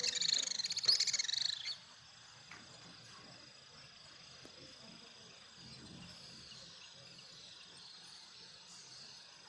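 Loud, busy bird chirping that cuts off about a second and a half in, leaving a faint, steady high-pitched insect drone.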